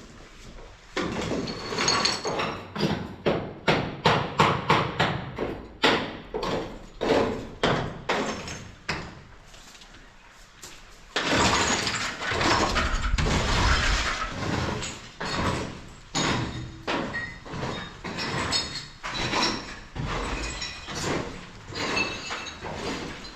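Repeated sharp knocks, a few a second, then a longer stretch of dense rattling clatter about halfway through, then scattered knocks again.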